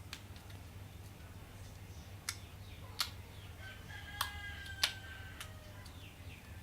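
Slime being poked and pressed, giving four sharp clicks and pops from about two seconds in. A thin, drawn-out squeaky tone runs between the last pops.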